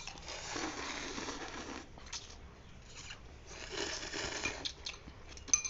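Two long slurps of boiled instant noodles, the second one shorter, with a sharp clink of a spoon against the bowl near the end.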